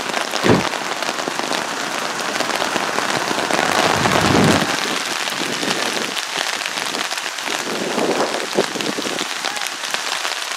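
Heavy rain pouring steadily. There is a thump about half a second in, and a low rumble swells up around four seconds in.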